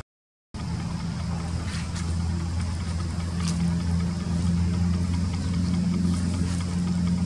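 Steady low hum of an idling engine, cutting in after half a second of silence and growing slightly louder, with a few faint high ticks.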